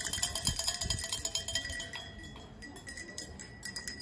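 Small metal souvenir cowbells on a display rack clanking and ringing as a hand shakes them. The strikes come thick and fast at first and thin out to scattered clanks after about two seconds.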